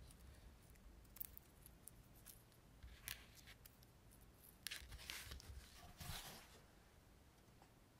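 Faint scattered clicks and scratchy rustling of small objects handled on a desk close to the microphone, with a longer scratchy rustle about five to six seconds in.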